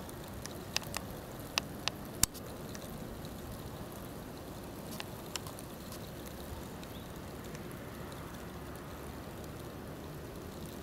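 Steady outdoor background hiss. Several sharp clicks fall in the first two and a half seconds, the loudest just after two seconds in, and two fainter clicks come about five seconds in.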